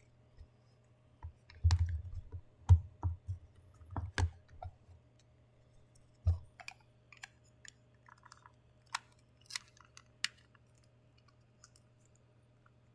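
Packaging being handled during an unboxing: a cluster of sharp knocks and clicks a couple of seconds in, one more knock around six seconds, then lighter scattered clicking, over a low steady hum.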